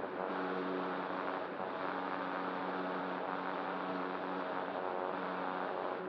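Electric motor and nose propeller of a radio-controlled ASW-28 scale glider running steadily in flight, a constant hum with several steady tones. It is heard from the onboard camera, with air rushing over the microphone.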